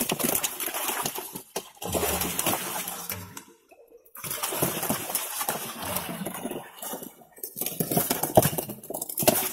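Water splashing and slapping as live fish thrash in a net in shallow water and are grabbed by hand and dropped into a plastic bucket. There is a short break about three and a half seconds in.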